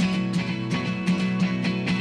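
Instrumental music with guitar and a steady beat, starting abruptly at the start.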